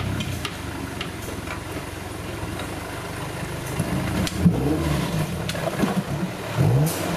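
Off-road competition 4x4's engine running under load, then revved up and down in several quick bursts from about four seconds in as the truck crawls over rocks, with a few scattered knocks.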